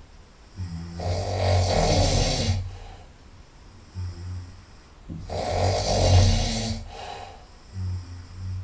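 A person's loud nasal snoring: two long snores about four and a half seconds apart, each with a low buzz and a hissy rasp. Shorter, quieter breath sounds come between them.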